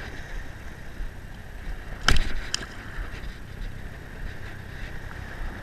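Steady wash of wind and shallow water lapping around a wading angler. Two short sharp sounds come about two seconds in, the second lighter, half a second after the first.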